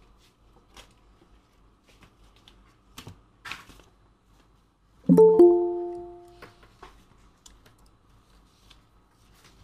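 Google Meet notification chime as a participant joins the call: a short bell-like chord of a few tones about five seconds in, fading over a second and a half. A few faint clicks come before it.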